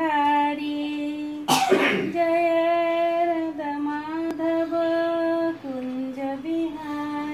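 A woman singing a slow melody in long held notes, without clear words. A short rough burst cuts across it about a second and a half in.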